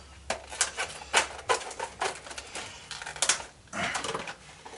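Irregular clicks and short rattles of a cheap torque angle gauge being handled and fitted for angle-tightening.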